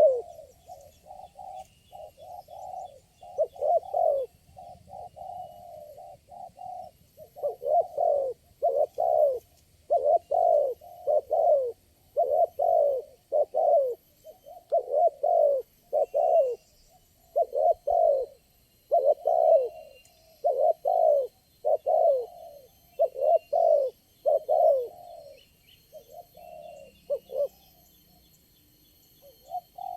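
Spotted doves cooing: a long run of low, repeated coos in quick succession, fewer and quieter near the end. Faint high bird chirps sound in the background.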